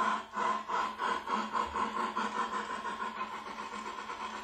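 Cartoon steam locomotive chuffing as it pulls away: the chuffs start about two a second and quicken into a fast, even beat.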